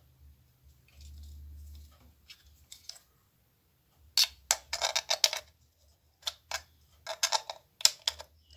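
Plastic clicks and rattles from a USB wall charger and a USB cable being handled, with the cable's plug pushed into one of the charger's ports. The clicks come in two quick clusters, one about four seconds in and one near the end.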